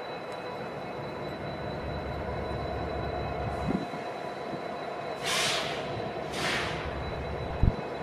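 A lash-up of EMD SD70MAC diesel locomotives, two-stroke V16 engines, running steadily as the freight train approaches. There are two short hisses about five and six and a half seconds in, and a sharp thump near the end.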